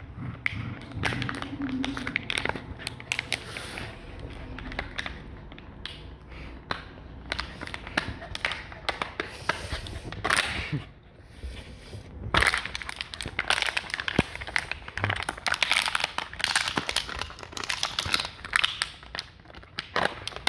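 Dog chewing on a plastic bottle: a dense, irregular crinkling and crackling of the plastic, with a short lull about ten seconds in and busier, louder crunching after it.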